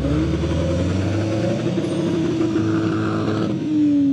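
A car engine held at high, fairly steady revs, its pitch wavering slightly and dipping a little near the end.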